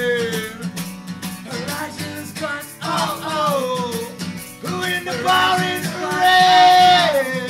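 Live rock band music with guitar and long held, wordless vocal notes that slide down in pitch.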